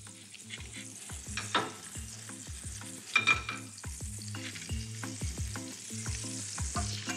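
Butter sizzling and crackling in a non-stick frying pan, with a fork clicking repeatedly against a metal bowl as beaten eggs are stirred.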